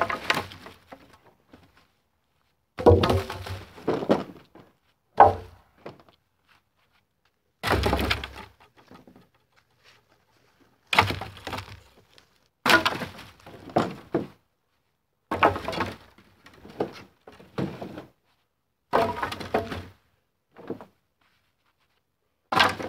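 Wood being cut and broken: branches and saplings cracking and snapping in about nine short bursts of sharp knocks, with quiet gaps between.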